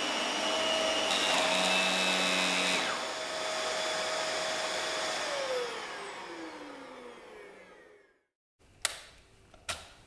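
Dyson DC24 upright vacuum cleaner running, its motor a steady whine with a shift in the sound about three seconds in. About five seconds in it is switched off and winds down with a falling whine, fading out about three seconds later. Two sharp clicks follow near the end.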